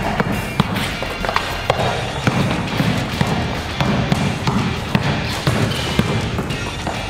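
A basketball being dribbled hard and repeatedly on a tiled court floor, sharp bounces about every half second, over background music.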